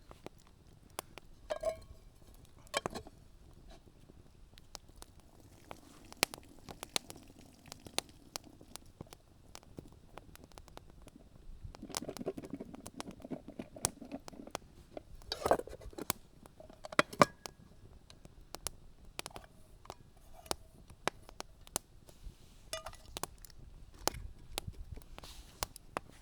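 Wood campfire crackling with scattered sharp pops, mixed with a few brief ringing metal clinks of cookware being handled.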